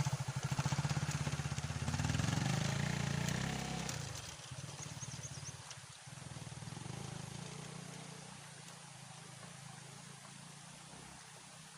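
Motorcycle engine running with a steady low pulsing, fading over the first few seconds until it is faint.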